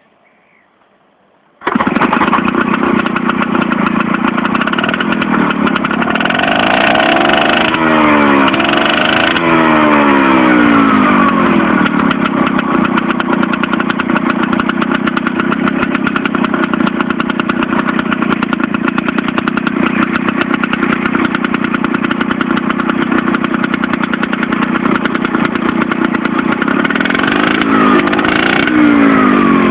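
Salyut small outboard boat motor starting up suddenly about a second and a half in, then running steadily. Its note shifts up and down briefly about a quarter of the way in and again near the end.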